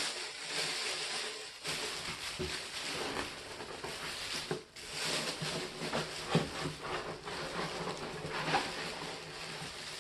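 Packing materials rustling and crinkling as they are handled and taken out of the soldering station's box, with many small crackles and clicks.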